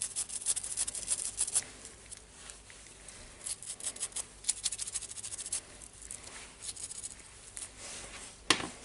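A small stiff-bristled hand brush scrubbing a small plastic drill part clean, in quick scratchy strokes that come in three bursts. A single knock comes near the end.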